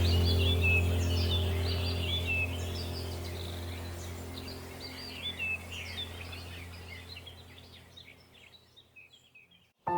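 Songbirds chirping and singing over a low, steady drone of held tones. Both fade out gradually to near silence just before the end.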